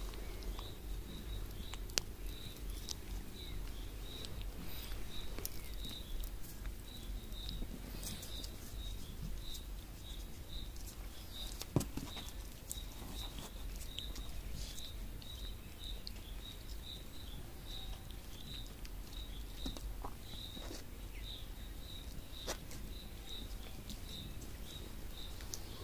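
Quiet outdoor ambience: a faint high chirp repeats evenly about twice a second, with soft rustling and a few light clicks as baby vervet monkeys scramble over a lap and blanket. The loudest click comes about twelve seconds in.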